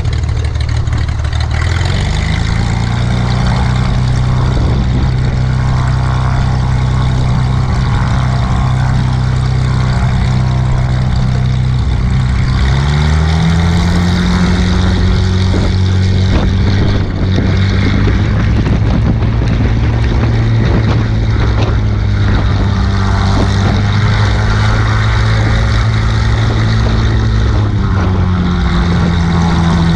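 Cessna light aircraft's piston engine and propeller running steadily. Its pitch steps up about two seconds in and again about thirteen seconds in as power is added.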